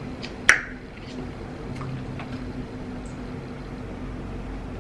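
Close-up chewing and mouth smacking while eating fried chicken wings, with faint wet clicks. A sharp click comes about half a second in, over a low steady hum.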